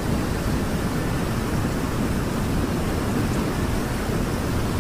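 A tall waterfall rushing steadily: an even, deep noise of falling water with no breaks or changes.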